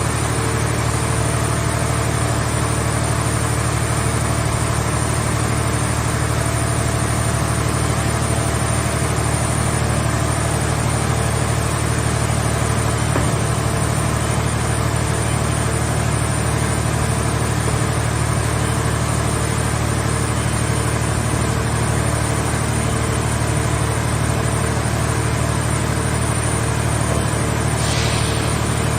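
Engine of a scrap car baler running steadily, a constant low hum that holds without change. A short hiss comes near the end.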